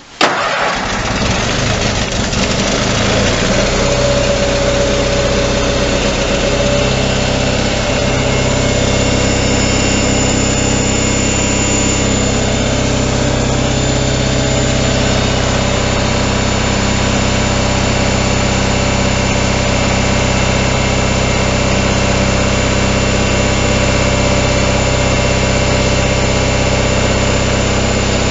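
Simplicity garden tractor engine catching on a cold start, choked and at half throttle. It comes in suddenly right at the start, then runs on steadily.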